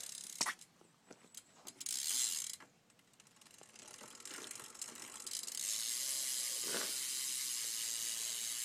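BMX rear hub freewheeling as the wheel spins on the upside-down bike, its ratchet pawls clicking. After a knock near the start and a short burst of clicking about two seconds in, it builds from about four seconds in into a steady, fast, high buzz of clicks. The owner calls it a really good hub that sounds good.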